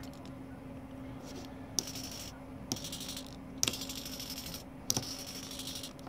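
Small RC hobby servo humming steadily, with four short bursts of high-pitched whirring, each starting with a click, as it steps slowly to a new position at a turned-down speed setting.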